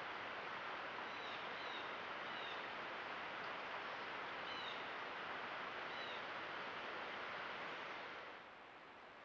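Steady outdoor hiss picked up by a trail camera's microphone, with a thin steady high tone over it and a few faint, short high chirps, like a small bird's, scattered through the first six seconds. About eight seconds in, the hiss drops to a noticeably quieter level.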